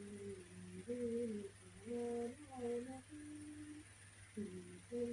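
A woman humming a slow tune with her mouth closed, holding each note about half a second and sliding between them.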